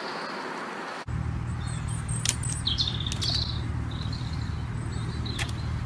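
Small birds chirping, a few short high calls coming and going, over a steady low rumble that starts abruptly about a second in, replacing a faint steady hiss.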